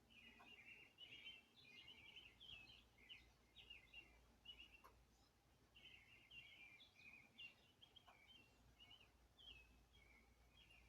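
Small birds chirping faintly: quick, high chirps in two long runs with a short gap between them, and a few faint clicks.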